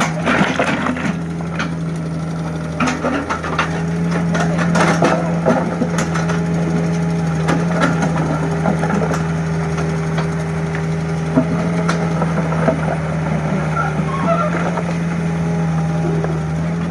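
Mini excavator engine running steadily, with scattered knocks and clatter from the machine working.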